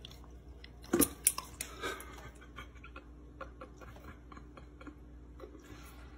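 Dog lapping sparkling water from a stainless steel bowl: a quick run of loud wet laps and clicks against the metal about a second in, then scattered faint ticks.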